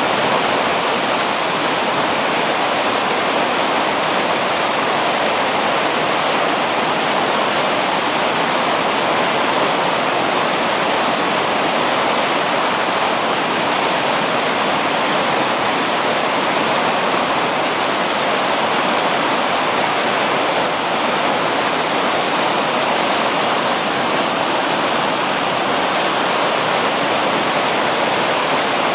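Steady rush of white water pouring over a river weir and churning in the stopper wave below it.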